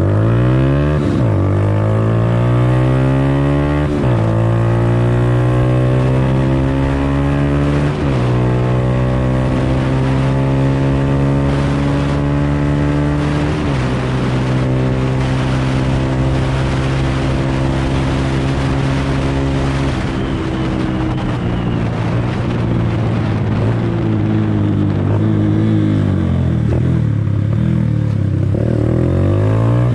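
Honda Invicta 150's single-cylinder four-stroke engine, breathing through a 28 mm Mikuni racing carburettor and a modified exhaust, pulling at full throttle through the gears. The revs climb and drop sharply at each of four upshifts, hold high near top speed of about 100 km/h with wind rushing past, then fall away as the bike slows, and climb again near the end.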